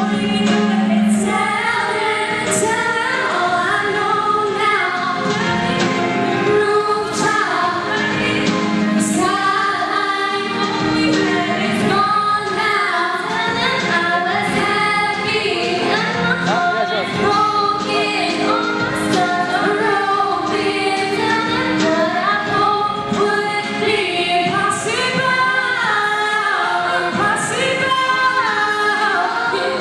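A group of female voices singing a song together in harmony through handheld microphones.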